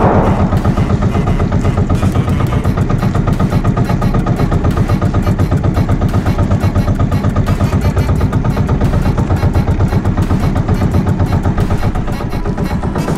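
Small outrigger boat's engine running steadily under way, with an even, rapid throb.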